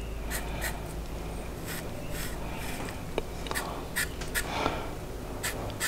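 Short scratchy strokes of a marker on a steel differential brace, marking where it is to be clearanced for the diff breather, over a low steady hum.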